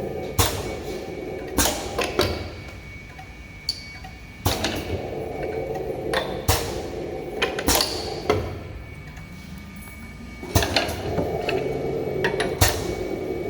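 Semi-automatic two-head lip gloss and mascara filling machine cycling in automatic mode: a steady machine hum runs for several seconds, drops away for about two seconds, and starts again, three times over. Sharp mechanical clacks come at the start and end of each run as the filling heads work.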